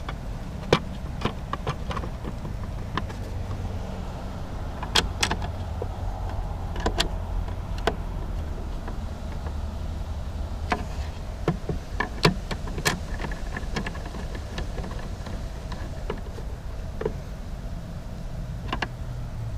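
Scattered light clicks and taps of a hand screwdriver and a plastic cover as the side cover of a trolling-motor mount is seated and screwed back on, over a steady low hum.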